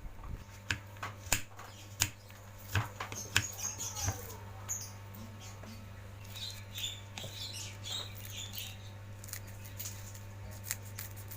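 Knife cutting a block of palm sugar (gula merah) on a cutting board: irregular sharp knocks and clicks, most of them in the first four seconds, thinning out afterwards, over a steady low hum.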